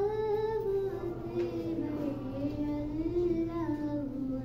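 A girl's solo voice singing a slow melody, holding long notes that rise and fall gently.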